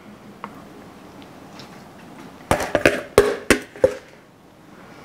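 A spoon scooping food and knocking against a bowl and a ceramic serving plate: a cluster of about six sharp clacks between about two and a half and four seconds in, after a few seconds of faint handling sounds.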